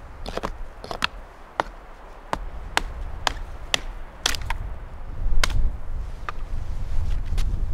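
Hatchet chopping dead, dry branches off a fallen tree: about a dozen sharp, cracking strikes at an uneven pace.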